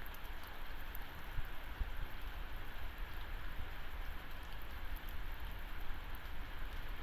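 Heavy rain falling steadily, with strong wind gusting against the microphone as a low, uneven rumble.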